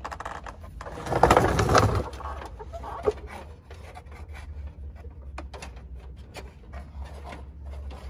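Hands working wiring and hose against the underside of a vehicle, with small clicks and scrapes throughout. A loud rasping sound lasting about a second starts about a second in, followed by a sharp click about three seconds in.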